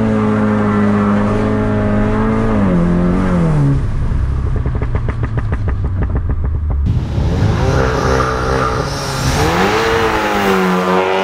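Tuned Volkswagen Golf R (Mk7) turbocharged 2.0-litre four-cylinder accelerating hard, the revs climbing, holding and dropping at gear changes. In the middle the engine note breaks into a stretch of rapid, even pulsing, then after an abrupt change it revs up and down again.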